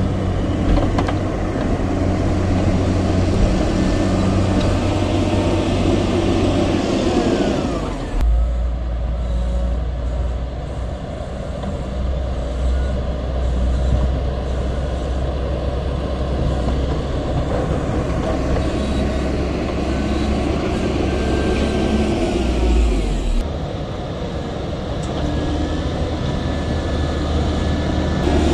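Cat 140M motor grader's diesel engine working under load as its blade pushes and scrapes soil along a dirt road. The engine note falls off twice, about a quarter of the way in and again about three-quarters through.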